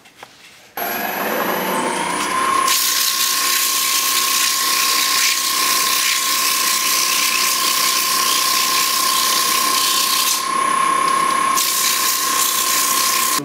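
Wood lathe starts suddenly about a second in, its motor whine rising in pitch and settling to a steady tone as it comes up to speed. From about three seconds in, a loud steady hiss of fine sandpaper held against the spinning wooden lamp column runs over the whine.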